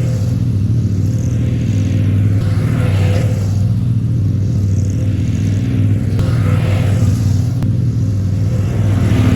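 Zero-turn mower engine running steadily while it drags a section of old fence over the soil to level it, with a rushing, scraping noise that swells and fades every few seconds.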